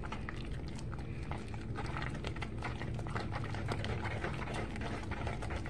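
Wooden spoon stirring thick chocolate frosting in a plastic bowl: repeated short scrapes and clicks of the spoon against the bowl, over a steady low hum.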